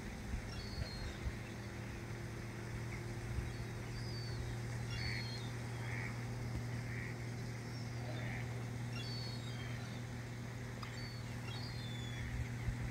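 Birds calling with short, high falling chirps and softer calls about once a second, over a steady low mechanical hum like a distant engine.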